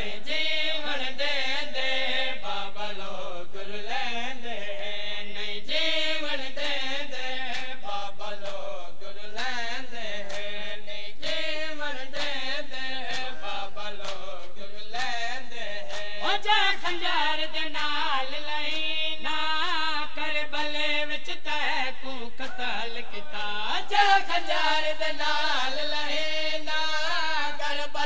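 A man chanting a Punjabi noha, a Shia lament, in a wavering, melismatic voice. Many short slaps are heard alongside it: the mourners' matam, bare-handed chest-beating, keeping time with the lament.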